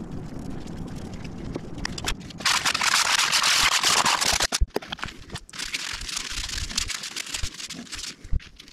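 Sandpaper rubbing over a wooden hammer handle, a loud rasping hiss from about two and a half seconds in and a quieter stretch of sanding later on. Before it come low scraping and handling clicks.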